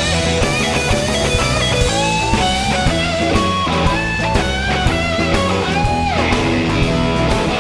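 Blues-rock band playing live: a lead electric guitar line with string bends over bass and drums, with a long falling bend a little past the middle.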